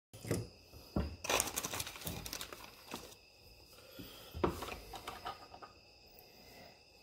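A series of clicks, knocks and light clinks from brass cartridges and reloading tools being handled on a wooden bench. The loudest knock comes about four and a half seconds in.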